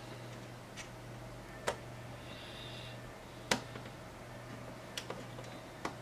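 Light, scattered clicks and ticks, about six, the loudest about three and a half seconds in, from a small precision screwdriver and screw knocking against the replacement power jack port's metal bracket as the port is screwed back into the laptop chassis.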